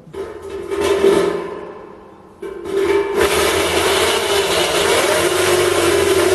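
Worn-gearbox AEG variable-speed electric drill running down and fading, then started again about two and a half seconds in and running loud and steady with a whine, a harsher rasping hiss joining about a second later. The owner says the drill's gearbox is dying.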